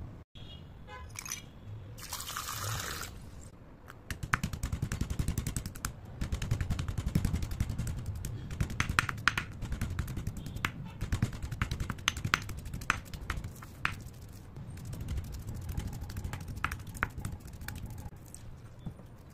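Chalk pieces being crushed and ground with a marble pestle in a marble mortar. From about four seconds in there is a dense run of small crunches and clicks over dull pestle thuds.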